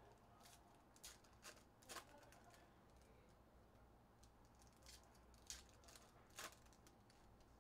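Faint handling of trading card packs: a handful of soft clicks and crinkles, spread irregularly, as foil pack wrappers are torn open and cards handled, over a low steady hum.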